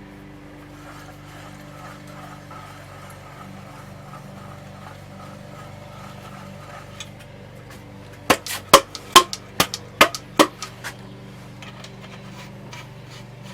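Workshop tools and metal motorcycle parts knocking together: a quick run of about ten sharp, ringing knocks in under three seconds, beginning a little past the middle. A steady low hum sounds throughout.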